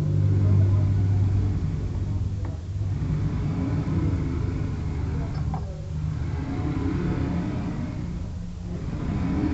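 CNC router running, its motors humming in a series of moves that each last two to three seconds, with short dips between them.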